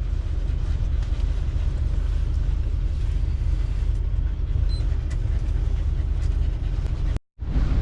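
Steady low rumble inside the cab of a 1990 Fleetwood Bounder Class A motorhome, stopped with its engine idling while strong wind buffets it. The sound cuts out for a moment near the end.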